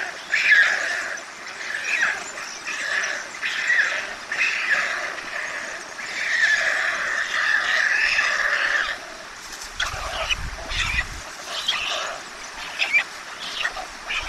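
White stork chicks begging for food at the nest: repeated rasping calls, with one long call near the middle, as they flap their wings at the adult. Low thumps about ten seconds in.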